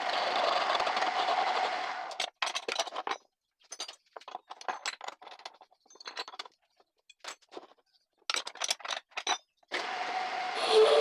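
Homemade wood lathe running, then going quiet about two seconds in. A stretch of scattered short knocks and clicks follows, and the lathe starts up again near the end.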